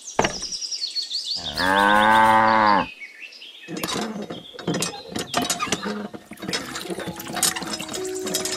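A cow mooing: one long, loud moo about a second and a half in. After it comes a quick run of small clicks and knocks.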